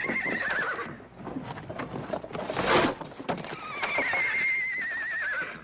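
A horse whinnying twice, each a long quavering call falling in pitch: one dying away about a second in, the other in the second half. Hooves clop in between, with a short loud rush of noise about halfway.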